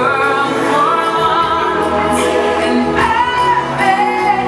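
Show soundtrack music with a choir singing a melody over a sustained accompaniment, loud and continuous.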